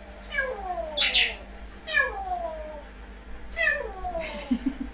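Pet parrot imitating gunfire: three 'pew' whistles, each sliding down in pitch over about a second, with short hissing sounds between them.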